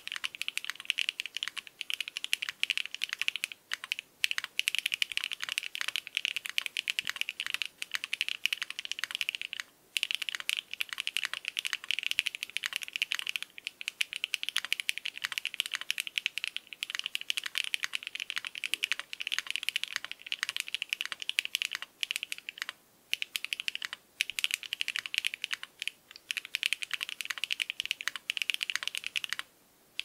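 Continuous typing on a QK75N mechanical keyboard with stock HMX Pearl switches on an aluminium plate, no foam, and PBT cherry-profile keycaps: a dense, fast run of keystrokes broken by a few short pauses.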